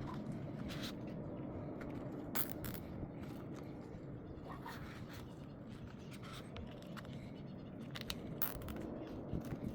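Faint steady background hiss with a few soft, scattered clicks and scrapes.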